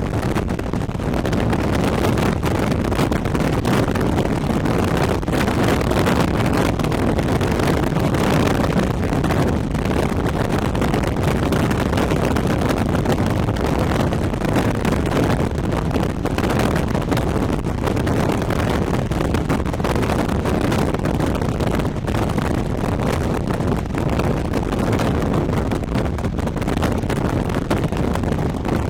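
Wind rushing and buffeting over the microphone at an open car window, over the steady road and engine noise of the moving car.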